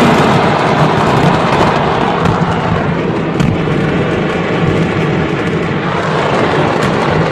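Stockpiled fireworks going off in an uncontrolled chain: a steady, dense crackle of many rapid pops over a constant rumble, with one sharper crack about three and a half seconds in.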